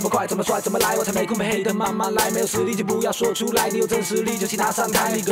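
A male rapper rapping fast in Mandarin over a hip hop beat with a steady bass line.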